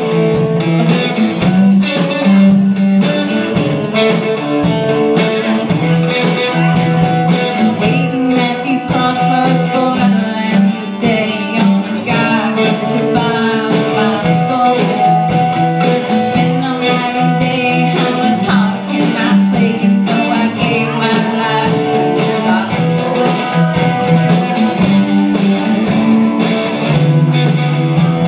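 A live band playing electric guitars, bass and drums, with a woman singing lead into a microphone.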